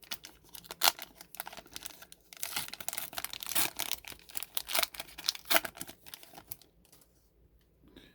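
Trading cards and their packaging being handled: a quick run of flicks, clicks and rustles that dies away about seven seconds in.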